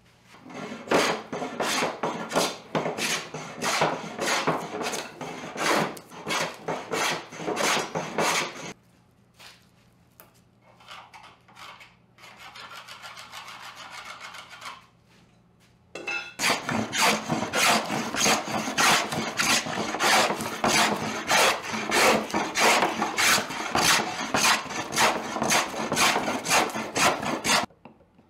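Hand plane taking quick, repeated strokes across a wooden board, about two strokes a second, each one a dry rasping shave. The strokes stop for several seconds in the middle, with a softer, steady rub, then start again at the same pace.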